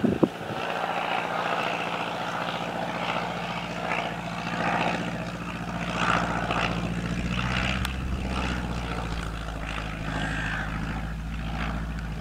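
Single propeller engine of a Piper Cub-type light aircraft droning steadily as it flies low past on arrival. The engine is loudest around the middle of the pass and eases slightly as the aircraft moves away. A couple of sharp knocks come right at the start.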